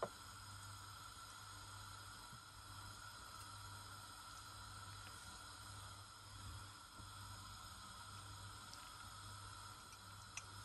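Near silence: faint steady hum and hiss of room tone, with a sharp click at the very start and a smaller click near the end.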